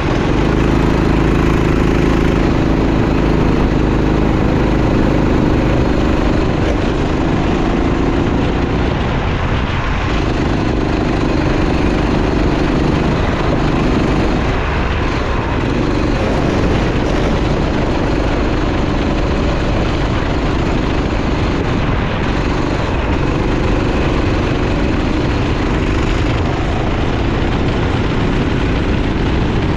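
Kart engine running hard and steady, its note dropping briefly a few times when the throttle eases, about nine, fourteen and twenty-two seconds in, then picking back up.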